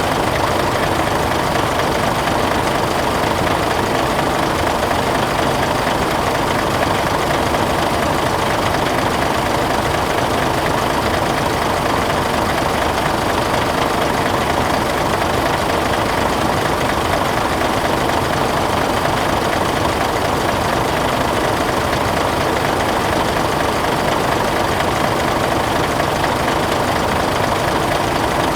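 Diesel truck engine idling steadily, with no change in speed.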